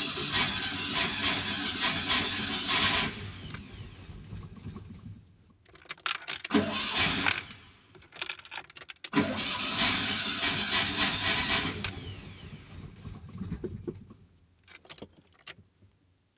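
Fiat 126p's two-cylinder air-cooled engine being cranked on the starter, sputtering and firing briefly without catching, so it fails to start. There are three cranking attempts: a long one at the start that dies away, a short one about six seconds in, and another long one from about nine seconds in. A few sharp clicks come near the end.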